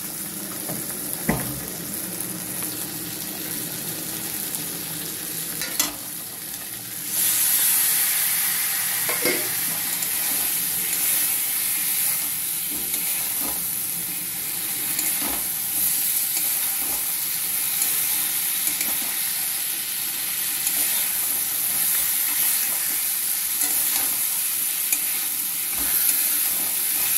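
Fish head and spiced masala sizzling and frying over high heat in a metal kadai as the liquid cooks down, with a spatula stirring and scraping through it and a few sharp knocks of the spatula on the pan. The sizzle steps up louder about seven seconds in.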